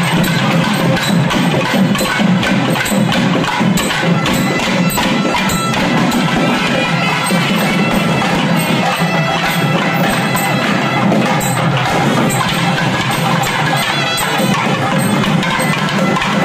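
Traditional South Indian temple procession music: a reedy nadaswaram line held over fast, sharp thavil drum strokes, playing steadily throughout.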